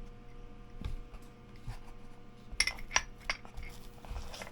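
Carbon crank arms and their metal parts being handled and turned over: a dull knock, then three sharp metallic clinks in quick succession, and a low thump near the end.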